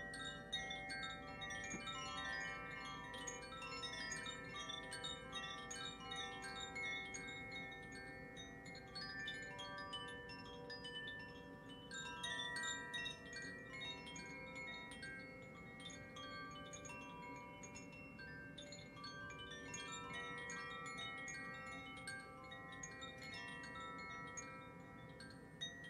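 Hand-played wind chimes tinkling continuously in a sound bath, with many bright, scattered strikes over overlapping sustained ringing tones.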